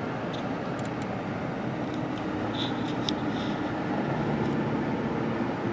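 Steady road and engine noise of a car being driven, with a low, even hum and a few faint ticks.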